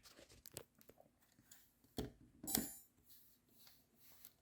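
Faint clicks and handling noises from a Sony Mavica MVC-FD200 digital camera as its lens cap comes off and the camera is switched on. A sharper click comes about two seconds in, followed by a short rustle.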